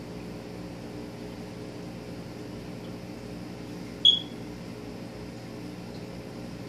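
Steady mechanical hum of an aquarium air pump and filter, with one sharp, high click about four seconds in.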